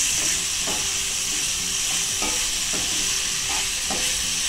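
Onions, tomatoes and capsicum sizzling in hot oil in a frying pan while a wooden spatula stirs them. The spatula scrapes across the pan in repeated strokes, roughly one every half second, over a steady frying hiss.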